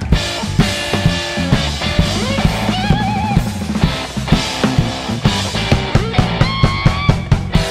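Live blues-rock band playing a shuffle: an electric guitar solo over drum kit and bass guitar. About two seconds in, a guitar note is bent up and held with vibrato, and another long note is held near the end.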